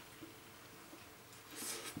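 Near silence: quiet room tone, broken near the end by a short hiss of water beginning to run from a tap.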